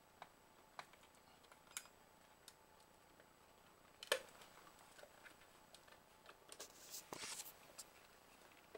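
Plastic clicks and taps from a Viola series 4-gang touch switch panel being fitted onto its wall mount, with a sharper click about four seconds in and a brief scraping rustle a little after seven seconds as it is pressed into place.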